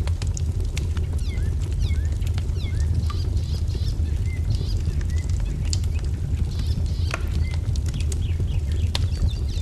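Wood fire crackling, with frequent sharp pops over a low steady rumble, while small birds chirp in short falling notes throughout.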